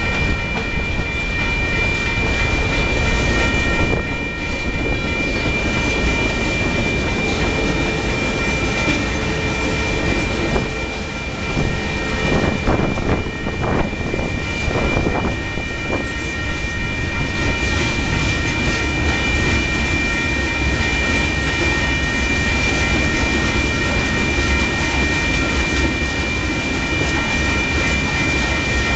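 Long freight train's cars rolling past on the rails, a steady clatter of wheels and rail joints with a steady high-pitched ringing tone over it and some heavier knocks about halfway through.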